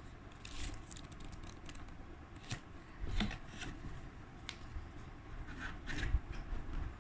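Hands handling packaging and small products: scattered light clicks, taps and rustles, with a couple of louder knocks about three and six seconds in.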